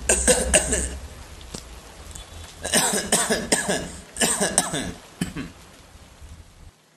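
A man coughing in fits: a short bout at the start, a longer run of coughs from about three seconds in, and one last cough a little later. It is the cough of someone sick with fever, a sore throat and body ache.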